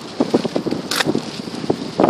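Gale-force wind buffeting the microphone in irregular gusts, with a brief rushing hiss about a second in.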